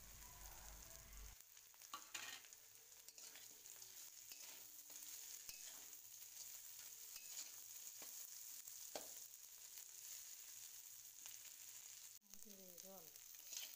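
Faint sizzling of fish-head pieces, bitter gourd and potato frying in oil in a wok, with a metal spatula scraping and scattered knocks as the mix is stirred and tossed.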